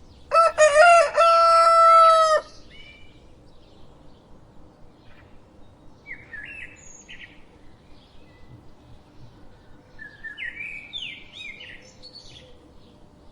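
A rooster crows once, a loud call lasting about two seconds near the start. Fainter high bird chirps follow twice later on.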